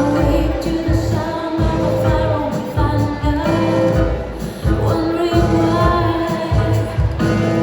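Tango music for ballroom dancing, with a singing voice over a strong, even beat.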